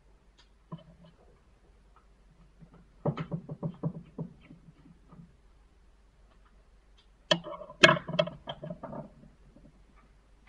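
Plastic housing of a BlackBerry Bold 9790 clicking and snapping as it is pried apart by hand, in two quick runs of clicks, the first about three seconds in and a louder one a little after seven seconds.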